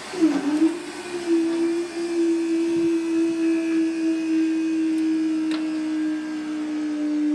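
Level-crossing barrier mechanism's electric motor whining steadily as the barriers are driven, starting abruptly with a brief dip in pitch and then holding one tone that sags slightly toward the end.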